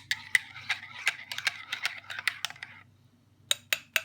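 DeLonghi Magnifica bean-to-cup coffee machine dispensing coffee, with a rapid irregular clicking splutter from the spout that stops about three seconds in, followed by three separate sharp clicks, over a faint steady low hum.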